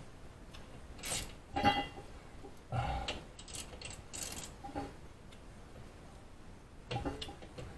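Metal hand tools clinking and clicking as they are handled on the car, in short separate strikes; one sharp clink a little under two seconds in rings briefly.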